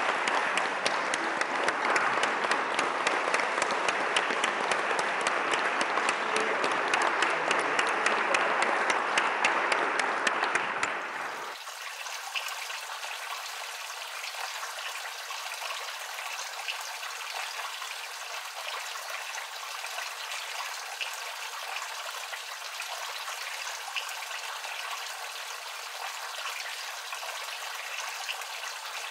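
Audience applauding with dense clapping for about eleven seconds, then cutting off sharply. A thin, steady hiss follows.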